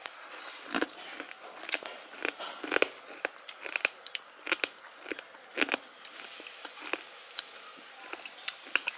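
Chewing crunchy fried pork: irregular sharp crunches and bites, one or two a second.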